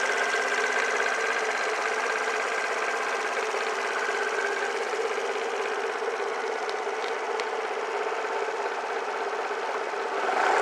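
A Suzuki Let's scooter's 50cc single-cylinder four-stroke engine idling steadily, getting louder for a moment at the very end.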